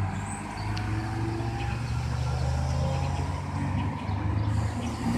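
Car engine idling: a steady low hum, rising slightly in pitch near the end.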